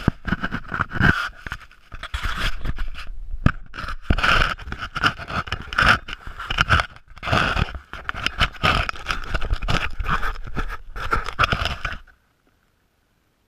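Handling noise on an action camera: a hand rubbing and scraping over the camera housing, with irregular scratchy bursts. It cuts off suddenly near the end.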